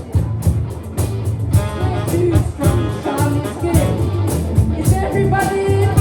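Live psychedelic rock band playing, with steady drum hits, a bass line and a bending melody line on top.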